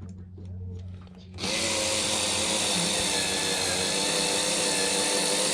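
Power drill/driver starting about a second and a half in and running at a steady high whine while driving a screw into the camper's wood.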